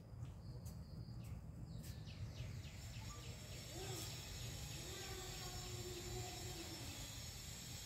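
Faint outdoor insect chorus: insects chirping in a quick, even series of about five chirps a second, starting about two seconds in, over a steady high buzz and a low background rumble.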